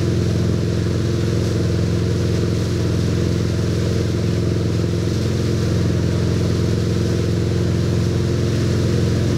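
Wakesurf tow boat's engine running at a steady cruising speed, a constant drone, with the rush of the churning wake water underneath.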